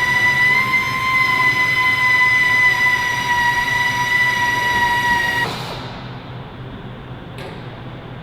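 A loud, steady high-pitched alarm tone held for about six seconds, then cutting off and dying away in a short echo. A single click follows near the end.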